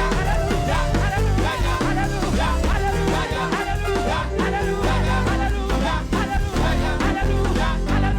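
Praise-and-worship band music with a steady drum beat and heavy bass.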